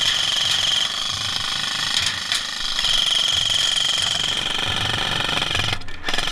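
Airsoft rifle firing on full auto in two long bursts, a rapid rattle with a steady high whine. The first burst ends about a second in, the second runs from about three seconds to near six, and rattling goes on between them.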